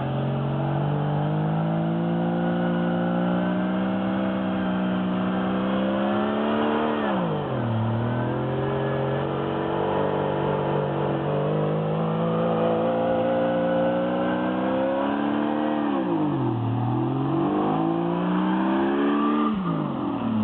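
Off-road vehicle's engine revving hard and held at high revs. The pitch dips sharply and climbs back twice, about seven and sixteen seconds in, as the throttle is lifted and reapplied.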